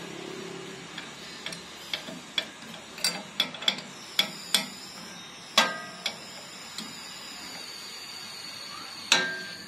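Steel hand tools clinking against a Tokico 2-inch flow meter as it is unbolted: a string of light, irregular metallic clicks and taps from a socket wrench on the cover bolts. Two louder clanks ring on, one about halfway and one near the end.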